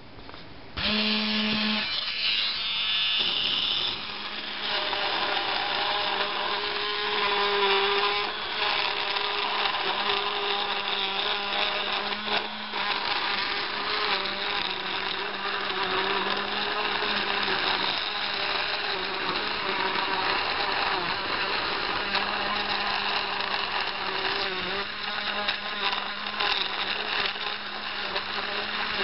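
Small homemade 12-volt DC router, a motor with a Dremel bit adapter, starts up about a second in and runs steadily with a high whine while its bit cuts into foam, the pitch wavering slightly under the load.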